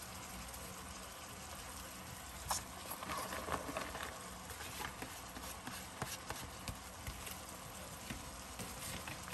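Ground pork frying in a nonstick skillet, a steady low sizzle. From about two and a half to seven seconds in come scattered light clicks and taps as carrot strips are tipped into the pan from a paper plate.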